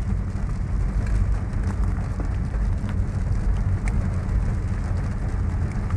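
A car driving slowly on a wet road in the rain, heard from inside the cabin: a steady low rumble of engine and tyres, with rain falling on the car and a few light taps of drops.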